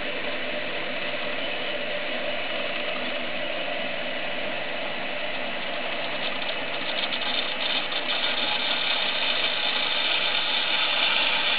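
Water rushing steadily through a hydronic automatic flow control valve and a wide-open temperature control valve, an even hiss. Light crackling comes in about halfway through, and the rush grows louder toward the end.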